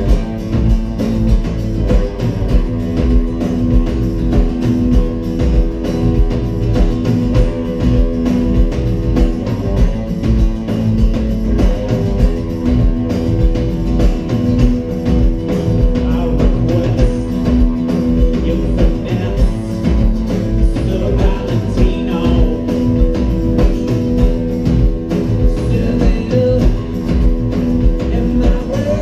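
Live rock band playing: guitars over a drum kit keeping a steady beat, with sustained chords and notes.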